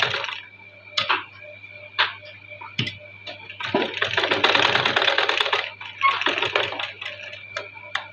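Sewing machine stitching in bursts with a fast needle rattle: a run ending just after the start, a run of about two seconds starting about four seconds in, and a shorter one right after it. Sharp clicks sound in the gaps between runs.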